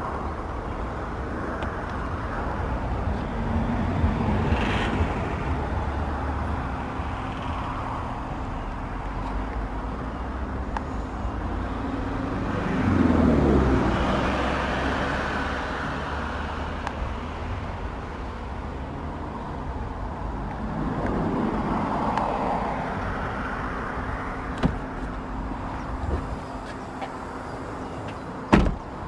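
Steady rumble of road traffic, with vehicles swelling past a few times, loudest about halfway through. A couple of sharp clicks come near the end.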